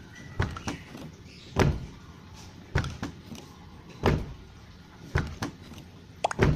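A car door being shut and opened again several times: about five solid thuds, each with lighter latch and handle clicks around it, the last a quick double. The door has been treated to close with a smoother, softer sound instead of a tinny clang.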